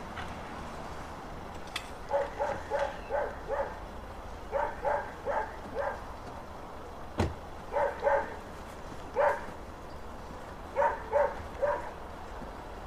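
A dog barking in short bursts of two to five barks, repeated several times. About seven seconds in there is a single sharp thump, a car door shutting.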